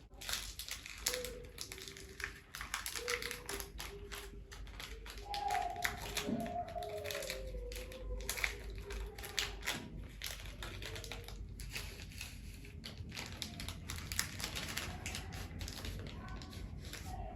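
Crinkly plastic candy wrapper being handled and torn open, a packet of Reese's peanut butter cups, giving many small crackles and clicks.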